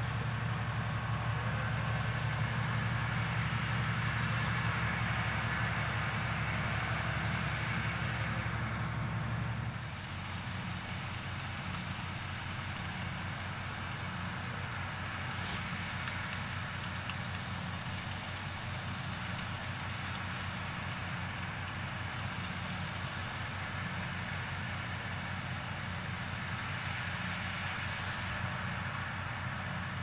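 New Holland combine harvester running steadily in a barley field, with a tractor working alongside: a continuous engine and machinery drone. About ten seconds in, the drone drops a little in level and its low pitch shifts.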